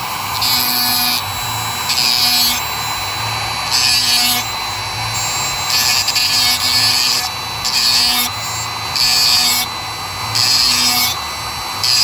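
Dremel rotary tool with a small grinding stone whirring steadily. A harsh, high grinding rasp comes in short passes every second or so as the stone is touched to a small steel C-clip held in pliers, grinding back its ear a little at a time so it will seat.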